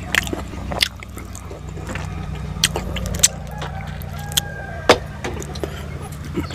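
Close-up eating by hand: sharp smacking and chewing clicks as rice and curry are mixed on a steel plate and eaten, over a steady low hum.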